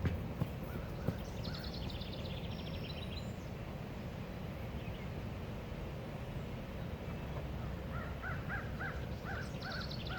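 Wild birds calling: a fast, high trill of repeated notes, heard twice, and near the end a quick run of short, harsh calls, over a low steady outdoor rumble.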